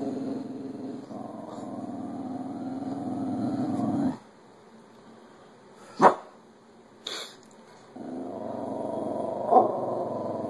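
Dog growling low and steadily, stopping for about four seconds midway, when one loud, sharp, very short sound comes, then growling steadily again.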